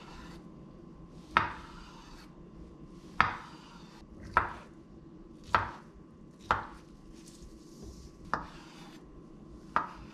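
Chef's knife slicing an avocado on a wooden cutting board: about seven separate cuts at an unhurried, uneven pace, each ending in a sharp knock of the blade on the board.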